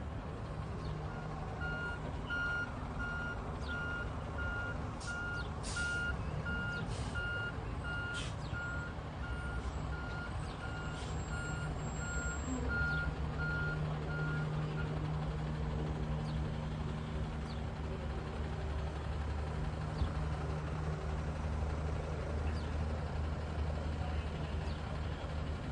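Truck's reversing alarm beeping steadily about twice a second for the first half, over the steady rumble of a large truck engine. The rumble grows louder after the beeping stops.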